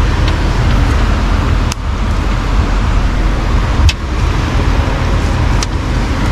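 Steady loud rumble of wind buffeting the camera's microphone, with a few sharp clicks from the fish and boat being handled.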